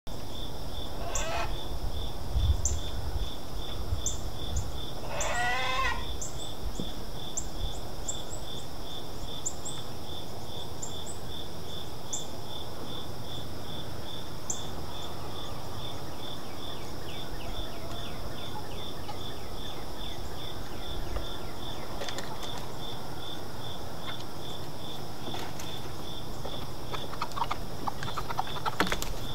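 A chorus of insects: a steady, even chirping at about three pulses a second over a constant high buzz. Two warbling bird calls come in the first few seconds, with short high chirps through the first half. Near the end there is a short flurry of flapping and scrabbling as hens come out of the coop and down the wooden ramp.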